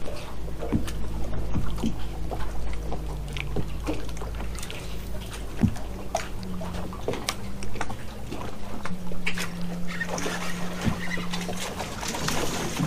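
Bow-mounted electric trolling motor running with a steady hum that steps up and down in pitch, over scattered small clicks and taps of rod and reel handling. A louder hiss rises about ten seconds in.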